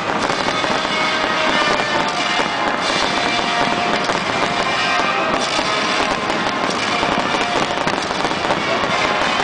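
Fireworks finale: aerial shells bursting and crackling in a rapid, continuous barrage with no let-up, with music playing underneath.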